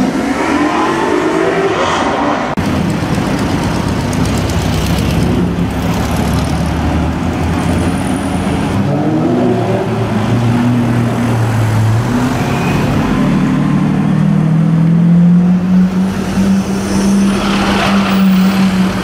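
Supercar engines revving and accelerating in street traffic, the pitch rising in sweeps near the start and about nine seconds in. In the second half a Lamborghini Aventador Roadster's V12 runs with a steady, held engine note.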